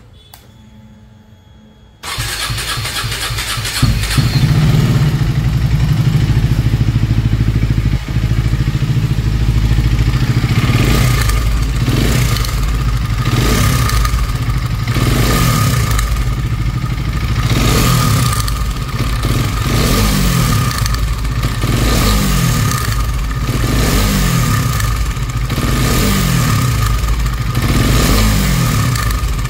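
KTM Duke 250's single-cylinder engine started about two seconds in and left running, with a string of throttle blips about every two seconds through the second half. It makes a bad engine noise, which the mechanic traces to a worn timing chain and damaged camshafts.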